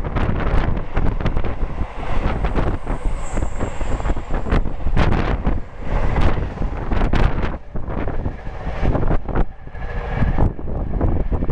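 Container wagons of a freight train passing at speed close by: a dense rumble and clatter of wheels on rail, with heavy wind buffeting on the microphone from the train's slipstream.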